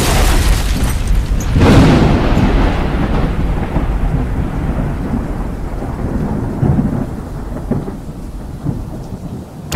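Sound effect of a huge explosion: a long rumbling blast that swells about two seconds in and slowly dies away, with another blast starting at the very end.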